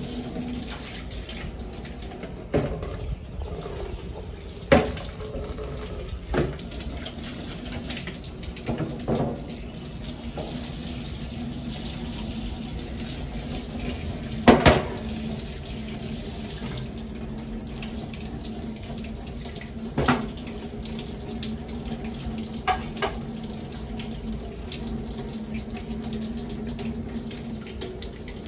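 Water running steadily from a tap into a stainless steel sink, with a few sharp knocks and clatters now and then, the loudest about halfway through.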